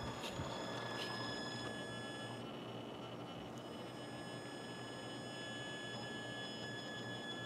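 High, steady electric whine of an RC crawler truck's motor driving slowly, with several pitches held together. It cuts out for about a second a little over two seconds in and then resumes, with a few light ticks early on.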